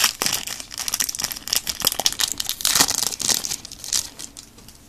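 Foil trading-card booster pack wrapper crinkling and tearing as it is handled and opened, in irregular bursts that die down about four seconds in.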